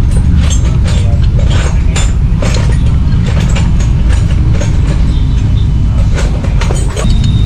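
Irregular metallic clicking and clinking of hand tools working on the windshield mount, several clicks a second, over a steady low rumble.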